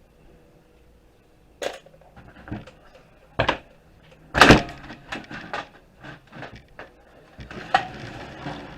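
Clicks, knocks and clatter of a desktop computer case being taken apart by hand. The sharp strikes are spread out, with the loudest about halfway through and a run of smaller taps after it.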